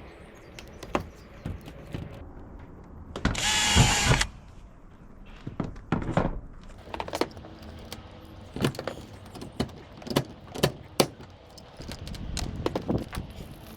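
Hand work with tools and flashing on a corrugated iron roof: scattered clicks, taps and knocks, with one louder rasping burst about a second long roughly three seconds in.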